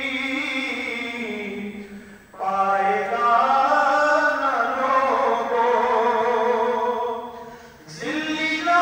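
Unaccompanied, chant-like singing in long, slowly gliding held phrases, with short breaks about two seconds in and near the end.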